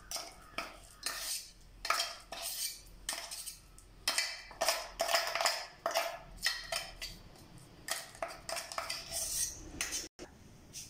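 A metal spoon scraping and knocking inside a stainless steel mixer-grinder jar as thick ground green gram batter is scooped out, in a quick irregular run of scrapes and clinks that stops about a second before the end.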